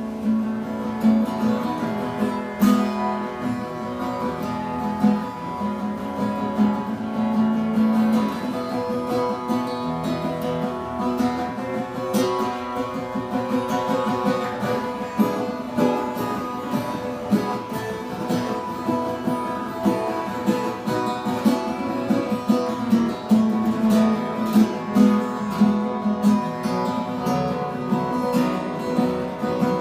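Acoustic guitar played solo: an instrumental passage of picked notes and strummed chords, with no singing.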